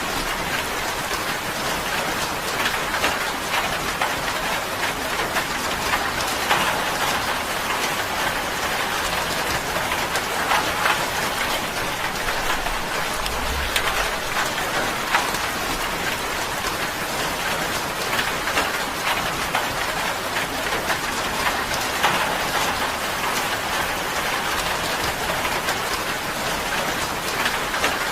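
Steady rain drumming on a tin roof, a dense patter of drops ticking on the metal.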